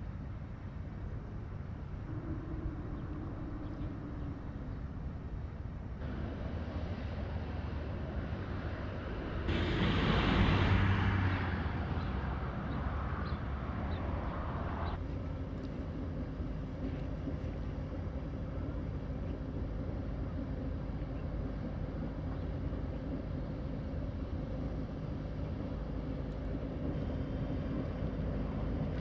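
Steady low drone of a pushing tug's 240 hp Detroit diesel engine, with a louder rushing noise that swells and fades about ten seconds in.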